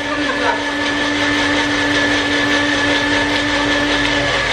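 Magic Bullet personal blender motor running steadily at full speed as the cup is held pressed down, blending a smoothie, with a constant hum; it cuts off at the very end.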